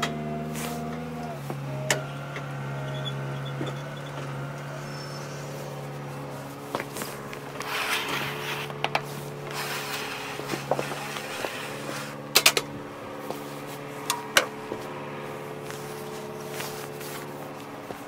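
A sawmill's engine runs at a steady speed, with a few sharp knocks as the squared log is handled on the mill bed, two of them in quick succession about twelve seconds in and two more about two seconds later.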